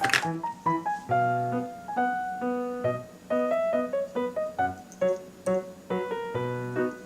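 Background music: a light piano or keyboard melody of short, separate notes over a simple bass line.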